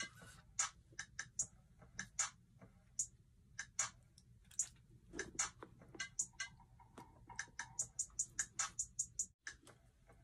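Faint, irregular light clicks and ticks, a few a second, from hands turning and handling a sneaker.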